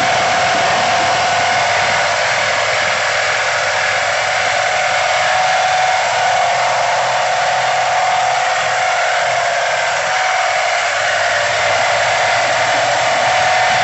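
CP 450-200 air compressor running steadily: a loud hiss with a steady high-pitched tone from the airend, the noise the owner reports as an airend sound problem at 1490 running hours.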